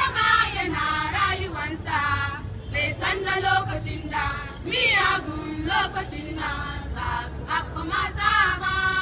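A group of girls singing together without instruments, in short sung phrases with brief breaks between them.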